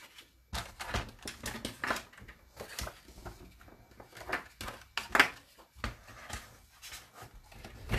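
Plastic knocks and clicks of a paper-crafting scoring board being set down on a work mat and its clear top handled: a string of irregular taps and clatters.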